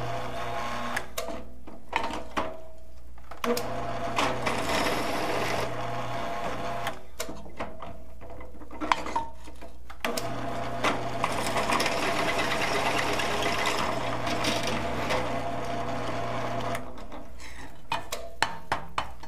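Millrite vertical mill used as a drill press: the spindle motor runs steadily while a drill bit cuts into a metal part. The grinding cutting noise comes in three spells, about 3 and 7 seconds of each, as the bit is fed in and backed off, with clicks from the work and the quill between.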